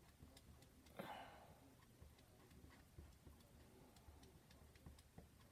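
Near silence, with faint light ticks and one soft scrape about a second in, from a plastic squeegee spreading chalk paste over a silkscreen transfer.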